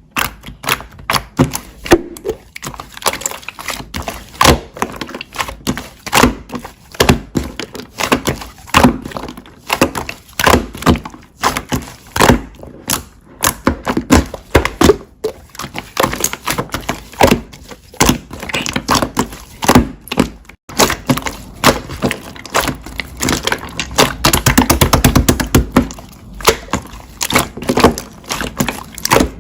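Slime being pressed and squeezed by hand, giving a fast, irregular run of sharp pops and clicks from air pockets.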